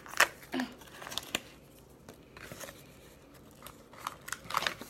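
Container of citric acid being opened by hand: a few sharp clicks in the first second, quieter handling noise, then another cluster of clicks near the end.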